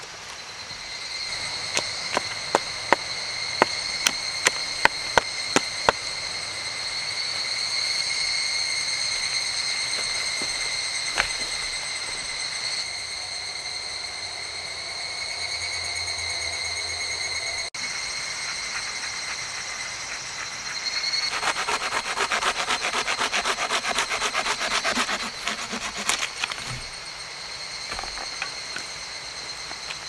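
A hand saw cutting through wood in a fast run of strokes for several seconds in the second half, with a row of about ten sharp taps early on. A steady high insect drone runs underneath.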